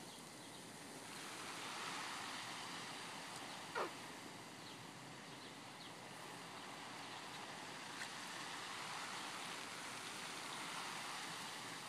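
Oscillating lawn sprinkler spraying water over grass and garden plants: a steady hiss of falling spray. About four seconds in, a short sound slides down from high to low.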